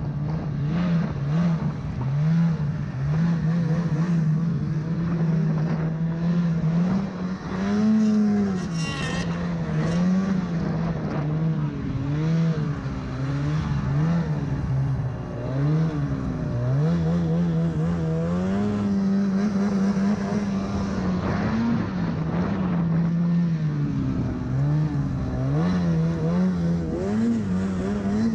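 Snowmobile engine running under constantly changing throttle while plowing through deep powder, its pitch rising and falling every second or two.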